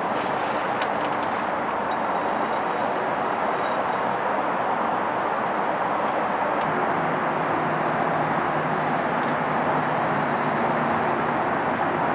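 Steady, even outdoor background noise, like distant traffic or wind, with no clear single event.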